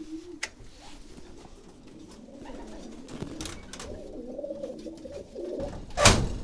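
Domestic racing pigeons cooing in their breeding loft, a steady low wavering coo from several birds during pairing season. About half a second in there is a click, and near the end a sudden loud flutter of wings as a pigeon takes off or lands on the nest boxes.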